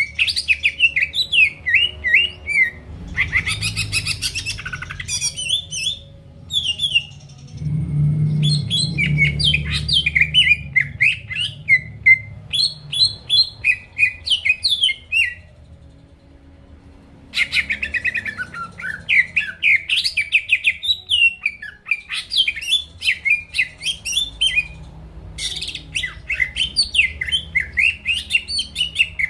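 Cucak ijo (green leafbird) in full song: a rapid, varied run of quick high chirps, trills and whistled notes, in long phrases broken by two short pauses.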